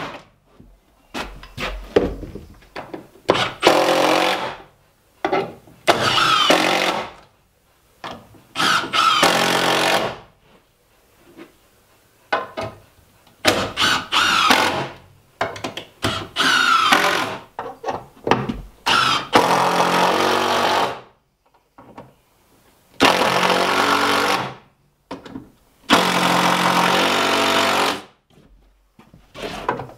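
Cordless power drill driving screws into wooden 2x10 blocking in about a dozen short bursts, with brief pauses between them; the motor's pitch rises as each burst starts.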